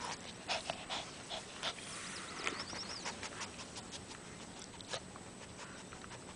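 A small Bichon–Shih Tzu puppy's sounds: a string of short, sharp noises, thickest in the first couple of seconds, with a few faint high squeaks about two and a half seconds in.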